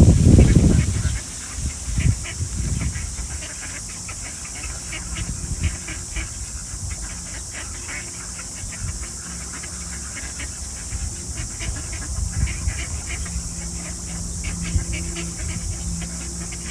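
A flock of ducks, geese and swans being fed, with many scattered short calls over a steady high-pitched hiss. A gust of wind rumbles on the microphone in the first second.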